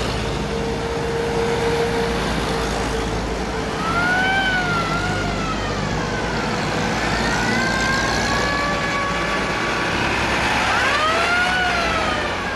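A siren wailing, rising and falling in pitch three times, over the steady running of passing WWII-era military vehicle engines.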